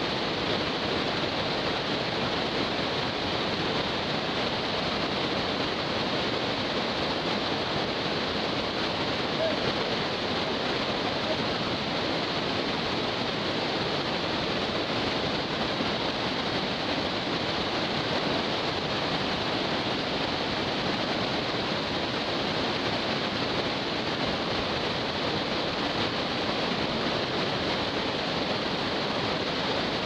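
Fast river rapids rushing: a steady, unbroken noise of whitewater that holds even throughout.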